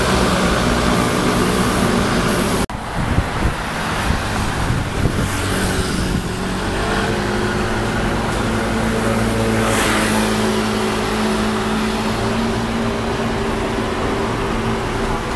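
Street traffic: motor scooters, cars and buses passing, a steady rumble of engines and tyres. The sound breaks off abruptly about three seconds in and picks up again as a continuous traffic rumble.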